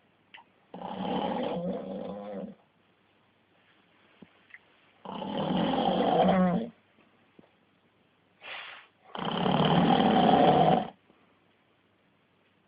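Man snoring deeply in his sleep: three long, loud snores about four seconds apart, with a brief shorter one just before the third.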